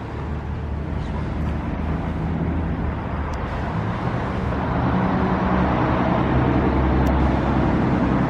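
Motor vehicle engine running with surrounding traffic noise, a steady low hum that grows louder over the last few seconds.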